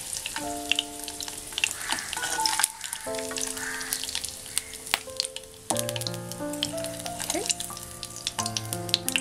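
Mutton pieces frying in hot ghee in a nonstick kadai, sizzling with a steady spatter of sharp crackles. Background music with held notes plays over it.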